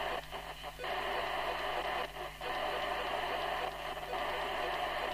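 TTI TCB565 CB radio receiver hissing steadily from its speaker, no signal on the channel. The hiss drops out briefly three times as the channel is stepped.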